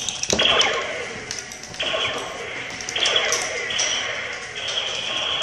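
Electronic chirps and sweeping tones from laser tag vests and phasers, several in a row, each starting abruptly.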